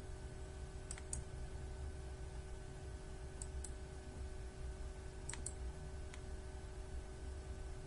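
Quiet room tone with a steady low hum, broken by a few faint sharp clicks that come mostly in pairs, three or four times.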